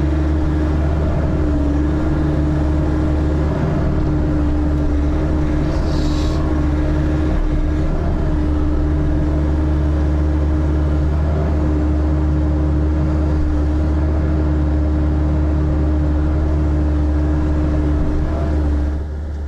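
Diesel engine of a bucket-equipped earthmoving machine running steadily under work while concrete is lifted out, with a brief higher-pitched scrape about six seconds in. The engine drops in level just before the end.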